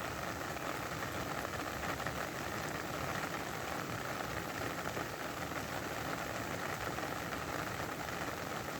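Steady rain falling, an even dense patter of drops on a surface with no change in intensity.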